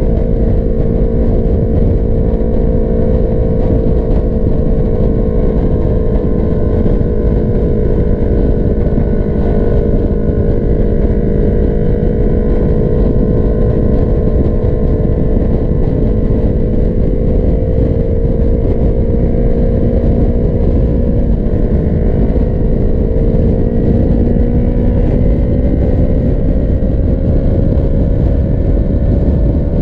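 Sport motorcycle's engine running steadily at cruising speed, heard from the rider's seat with heavy wind rumble on the microphone. The engine note sags slightly midway, then climbs gently over the last several seconds as the bike speeds up.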